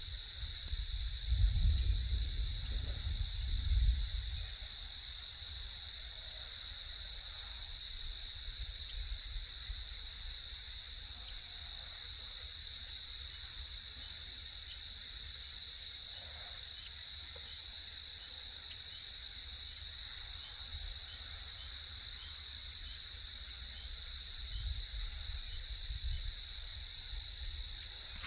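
Insects chirping steadily: a continuous high trill with a faster, rhythmically pulsing chirp above it. A few low rumbles come near the start and again near the end.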